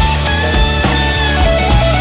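Blues-rock band recording: an electric guitar plays a lead of held, bent notes over drums and bass, with regular drum hits.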